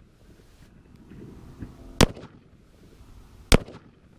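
Two 5.56 mm rifle shots, about a second and a half apart, the first about two seconds in, fired at a ceramic Level III+ armor plate; each is a sharp crack with a short echo.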